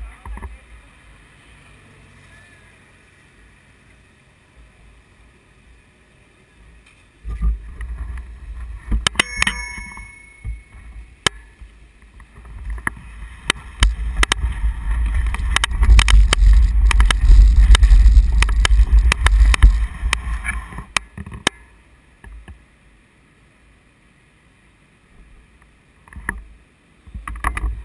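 Bicycle-mounted camera shaking and rattling as the bike rolls over rough paving: a loud low rumble full of clicks and knocks for most of the middle, loudest in the second half of it, with quiet wind and tyre noise on the smoother stretches before and after.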